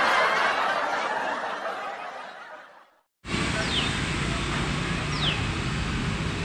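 People laughing and chattering, fading out over about three seconds. After a moment of silence comes a steady noisy background with two short falling high tones.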